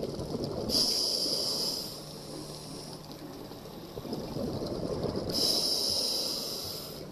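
Scuba diver breathing through a demand regulator underwater: two long hissing inhalations about four and a half seconds apart, over a low bubbling rumble of exhaled air.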